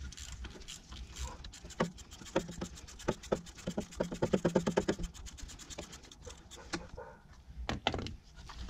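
Ratchet with a 7 mm socket clicking in quick regular runs as it loosens the bolt that holds the wiring plug into the ignition control module, with scattered knocks of the tool against the metal.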